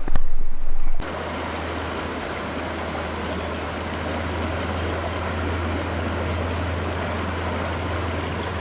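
Steady rush of river water flowing. It follows about a second of gusty wind buffeting the microphone, which cuts off abruptly.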